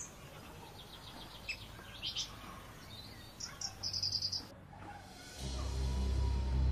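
Faint outdoor ambience with birds chirping in short, high calls. About five seconds in, low sustained music comes in.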